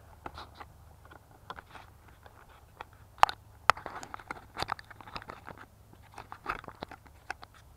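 Grass rustling and crackling against a hand-carried drone camera, with handling knocks and footsteps through long grass. Two sharp knocks a little after three seconds in are the loudest sounds.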